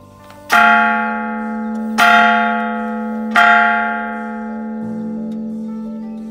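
Large hanging bell in a wooden frame rung three times, about a second and a half apart; each stroke rings on with a long hum that fades slowly. Soft background music plays underneath.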